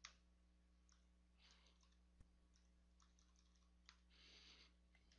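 Near silence with faint computer keyboard keystrokes, scattered single clicks and short quick runs, as a phone number is typed in.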